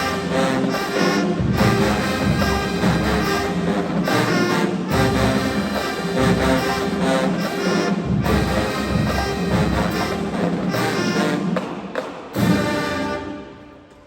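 Marching band brass and drums playing a loud, full passage, closing with one sharp final hit about twelve and a half seconds in that quickly dies away.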